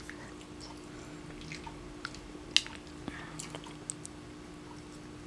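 A cat chewing a small crumbly treat: scattered soft crackles and clicks, with one sharper click about two and a half seconds in, over a faint steady hum.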